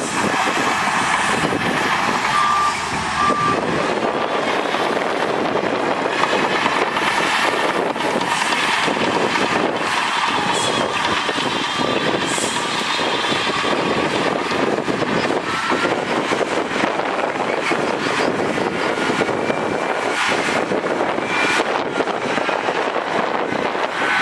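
Heavy diesel earthmoving machinery running steadily under load. A reversing alarm gives three short beeps about two and a half seconds in.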